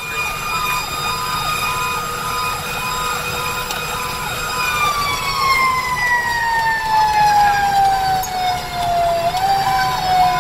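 Fire engine sirens heard from inside the cab. One siren gives a steady whine that slides down in pitch through the second half. A second siren tone pulses on and off about twice a second, over the low rumble of the truck under way.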